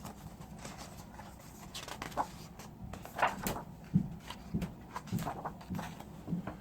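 Faint, scattered small clicks and rustles of handling noise, with a few brief faint higher sounds.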